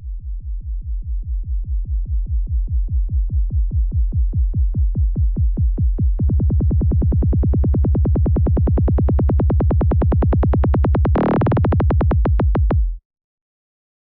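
Psytrance kick and rolling synthesizer bass pulsing rapidly and evenly, growing gradually brighter as a filter sweep opens. It turns fuller about six seconds in and has a short bright swell near the end, then stops abruptly about a second before the end.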